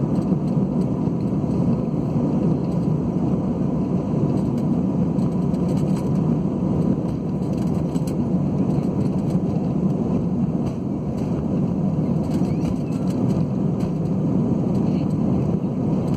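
Steady jet engine and cabin noise heard from inside an Airbus A320-family airliner as it taxis: a low, even rumble with a faint steady whine above it.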